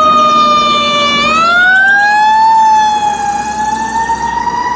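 Fire ladder truck's siren wailing loudly, its pitch dipping slightly and then climbing slowly from about a second in.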